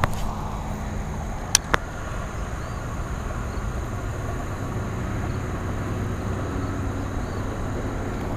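Steady low outdoor rumble, with two sharp clicks close together about a second and a half in.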